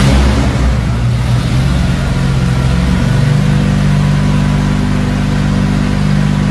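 Chevrolet 6.0-litre V8 swapped into a Toyota Land Cruiser hardtop, idling steadily just after starting. About three seconds in, the idle steps up slightly and holds.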